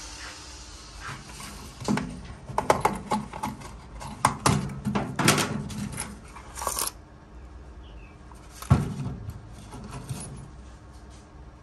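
Small steel slug-mold parts clinking against each other and against a plastic tub as a hand rummages through them, a quick run of light clicks, then one heavier knock about three quarters of the way through.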